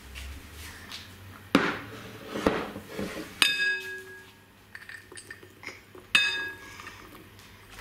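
A white ceramic jug knocking against a glass mixing bowl as blueberries are tipped in: several sharp clinks, two of them leaving a short ringing tone from the glass.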